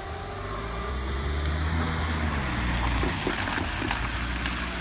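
A vehicle passing over the level crossing: a low engine hum swells from about a second in, with a few knocks about three seconds in as it crosses the rails.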